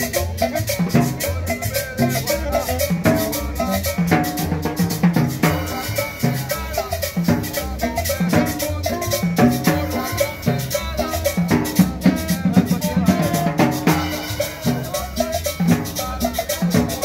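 Latin dance music with drums and maracas keeping a steady, upbeat rhythm.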